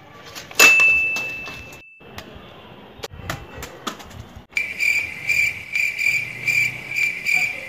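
A sharp hit about half a second in, followed by a high ringing tone that fades over about a second and a half. From about halfway through, a chirping-cricket sound effect: an even high chirp about three times a second.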